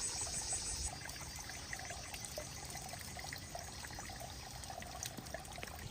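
Small mountain stream trickling and burbling over stones, a faint steady flow with small splashy clicks. Insects trill briefly at the start, stopping about a second in.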